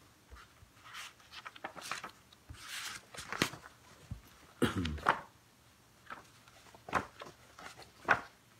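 Quiet rustling of paper as the pages of a prayer book are leafed through, with a few short clicks and taps at irregular intervals.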